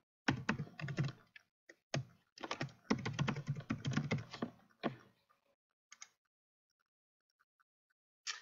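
Typing on a computer keyboard: a quick run of keystrokes for about five seconds, then a single click about a second later and another near the end.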